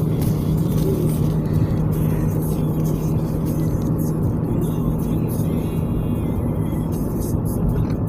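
Steady engine and road noise heard from inside a car cruising at highway speed, a constant low hum. A car radio plays music underneath.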